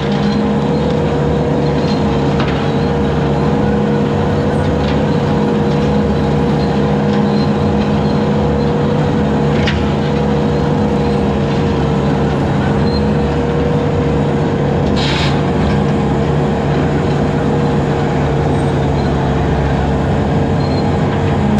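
2001 Bobcat 873G skid steer running steadily at working speed, driving a 72-inch quick-attach brush cutter on low-flow hydraulics of about 18 gallons per minute. A short crackling burst sounds about fifteen seconds in.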